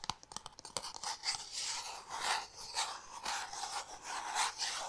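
Fingertips and nails rubbing and scratching a small white cardboard jewellery box close to the microphone, in a series of rasping strokes, about two a second.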